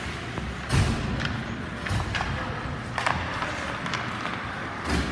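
Several sharp knocks and thuds from play, the loudest about a second in and near the end, over a steady background of arena noise.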